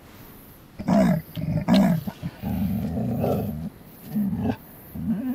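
Dog barking twice, then growling for about a second, a further short bark, and a drawn-out steady-pitched cry starting near the end: alarm barking at something unseen, which the camper takes for a wild animal nearby.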